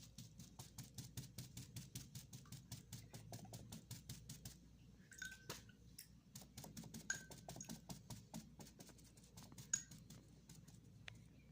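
Cotton bud dabbing acrylic paint onto canvas: a quick run of faint soft taps, several a second, with a brief pause about five seconds in.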